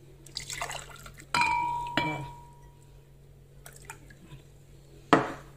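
Water poured from a drinking glass into a blender jug. About a second in, the glass strikes the jug and rings clearly for over a second, and there is a sharp clink near the end.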